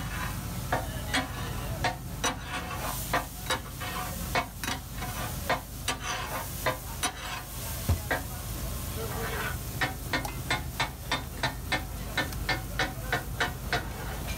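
Metal spatulas clacking against a large flat iron griddle as fish katakat is chopped and mixed, over the sizzle of the frying. The clacks are irregular at first, then settle into a quick, even beat of about three a second near the end.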